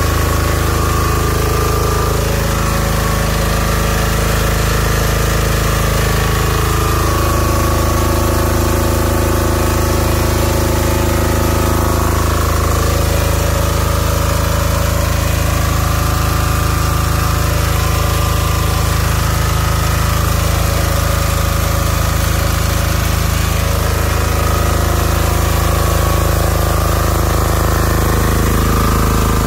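Power Hub DG6510S 5500 W portable diesel generator's single-cylinder diesel engine running steadily.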